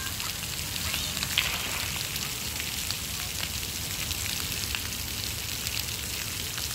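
Steady hiss of splash-pad water jets spraying and pattering onto the wet rubber play surface.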